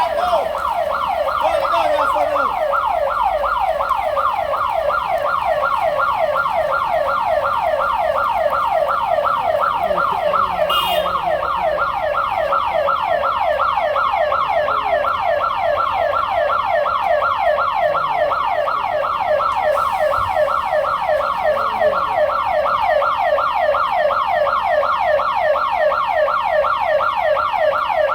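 Siren in a fast yelp, sweeping up and down in pitch about three or four times a second, steady and unbroken.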